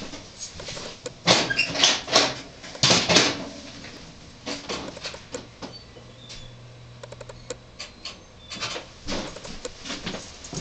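Clicks and clunks of an IGT S+ slot machine's cabinet door being unlocked and swung open, then shut again near the end. A low steady hum sounds for a couple of seconds midway.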